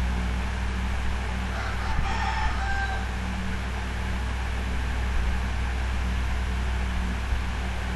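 Steady low electrical hum and hiss on the recording, with a faint pitched call in the background about two seconds in.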